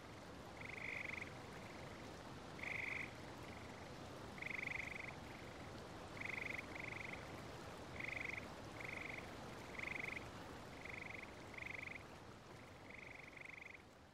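Faint frog croaking: short calls repeated about once a second, some in quick pairs, over a low steady hiss.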